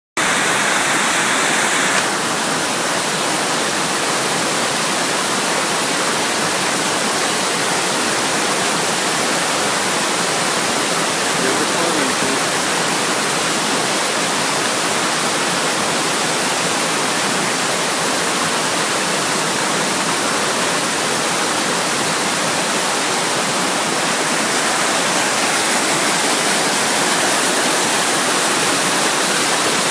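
Waterfall rushing steadily, heard from right on top of the falls.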